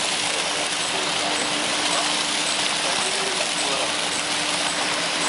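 Steady rush of choppy sea water, with a faint low steady machinery hum underneath.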